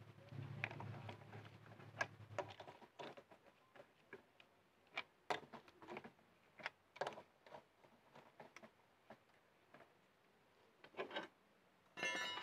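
Steel lug nuts clicking and clinking against the wheel studs and alloy rim as they are spun on by hand, a scattered run of small sharp clicks. A low hum fades out about two and a half seconds in, and a short buzzy tone sounds near the end.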